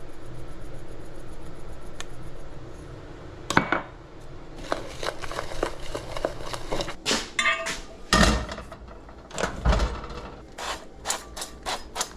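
A utensil clinking and scraping in a bowl while stirring a dry flour, crumb and salt breading mix, ending in a quick run of even taps, about four a second.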